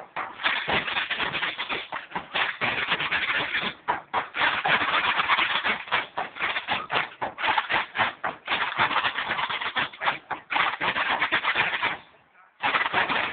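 Band of bass drums and snare drums playing, a dense, fast beating of strokes that drops out for about half a second near the end and then starts again.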